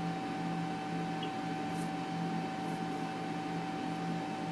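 Steady electrical hum over a constant hiss, with one clear tone and a lower hum that wavers about once a second.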